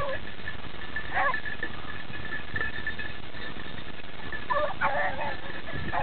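Pack of beagles baying on a rabbit's scent: short bursts of hound voice about a second in and again, in a longer run of calls, near the end.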